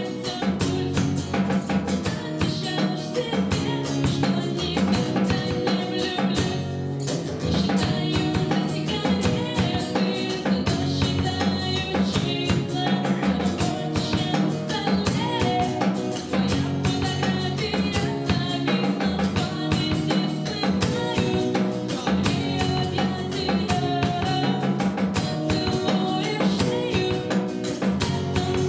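Live song performance: guitar and drum kit playing with a dense steady beat, with some singing.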